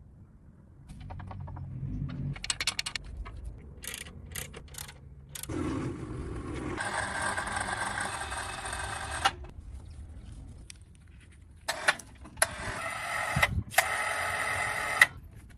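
Hand-tool work noises in a workshop: a run of sharp clicks and knocks, then two spells of steady hissing, about four and three seconds long.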